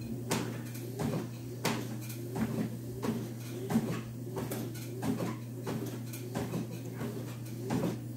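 Treadmill running with a steady low hum while someone walks backwards on the belt: footfalls thud on the deck about three times every two seconds. A tone swells and falls with each step.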